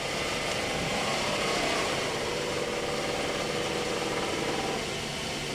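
Acer E-Mill 3VKH vertical milling machine's spindle running steadily, its Baldor 3 HP motor speed-controlled by an inverter drive instead of a belt-shift system. An even, nice and quiet hum.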